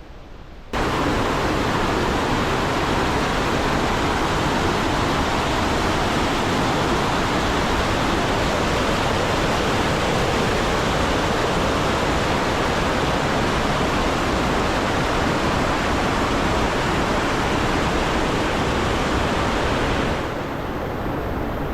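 Dumbara Ella waterfall: a large mass of water falling and hitting the ground, a loud, steady rush that cuts in suddenly about a second in and drops slightly in level near the end.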